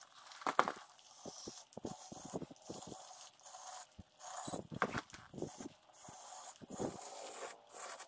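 A steel concrete edger scraping and rubbing along the edge of freshly poured wet concrete in short, irregular strokes.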